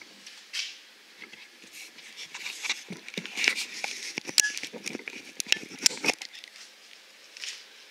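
Handling noise on a handheld camera: irregular clicks, taps and rustles, thickest in the middle and dying away about six seconds in.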